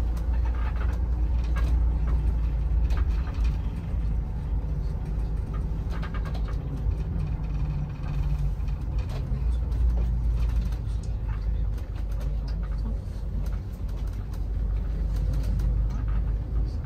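Steady low rumble of a shuttle bus's engine and tyres heard from inside the cabin, with scattered small clicks and rattles.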